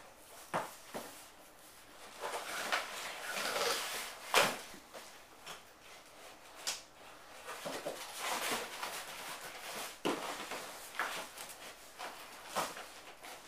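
Irregular rustling, scraping and clicking of packaging being handled and pulled off a new bicycle, with a few sharp knocks, the loudest about four seconds in.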